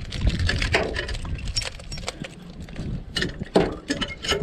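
Keys jingling on a keyring and a key working the lock of a truck camper's FastGun turnbuckle tie-down, with a series of sharp metal clicks and clinks, the loudest about three and a half seconds in and near the end.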